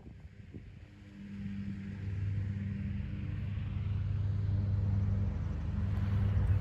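A motor vehicle's engine running at a steady pitch, a low hum that grows louder over the first two seconds and then holds.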